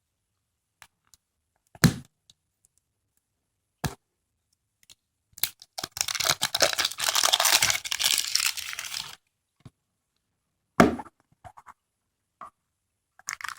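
Plastic wrapping of a surprise egg being torn and crinkled open, a dense crackle lasting about three seconds in the middle. Single sharp cracks come before and after it.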